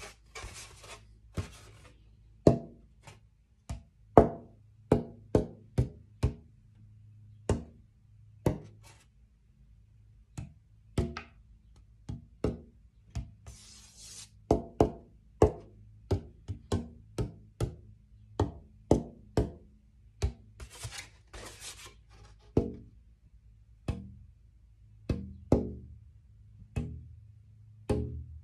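Roughed-in, unsanded acoustic guitar soundboard tapped again and again with the fingers at different spots, each tap a short wooden knock with a brief ringing tone: tap-tuning the top while voicing it.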